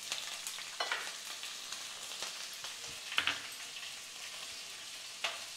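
Hot oil sizzling in a nonstick kadai as slit green chillies fry in a tempering of urad dal, mustard seeds, cumin and dried red chilli. A steady hiss runs throughout, with a few sharp crackles and pops.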